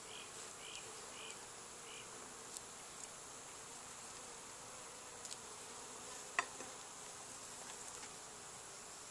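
Honeybees buzzing steadily around an open Langstroth hive whose frames are being pushed back together with a hive tool. A single sharp click sounds about six seconds in.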